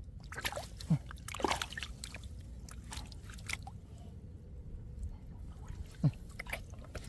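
Squelching and splashing of hands working through wet mud and shallow water, with scattered short wet smacks and drips, a few louder ones about a second in, at a second and a half and near the end.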